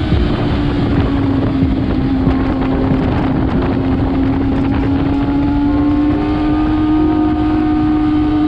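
Kawasaki ZX-6R's inline-four engine held at a steady high pitch that sags slightly, then climbs gently, with heavy wind buffeting the microphone.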